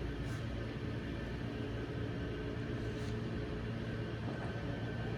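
Steady low hum of the Yerkes Observatory elevating floor's drive machinery as the counterweighted floor rises, with a couple of faint soft clicks.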